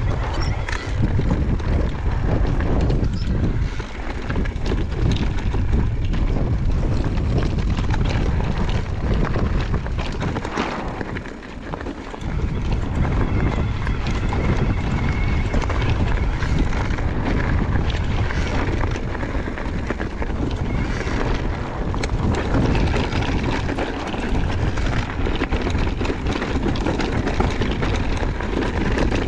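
Mountain bike riding over a loose gravel and rock trail: tyres crunching, the bike rattling with irregular knocks from the rough ground, and wind buffeting the microphone. The noise eases briefly about a third of the way through.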